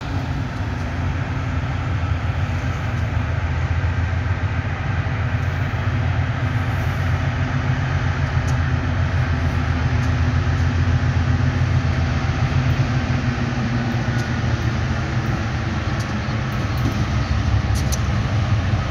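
Diesel-electric locomotives hauling a heavy bauxite ore train, approaching with a steady low engine drone that grows slightly louder. A few faint clicks come near the end.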